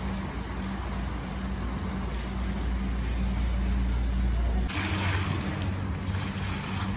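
A steady low rumble, then about five seconds in it gives way to a hissing splash as water is poured from a bucket into a giant cast-iron kazan of steaming pilaf base.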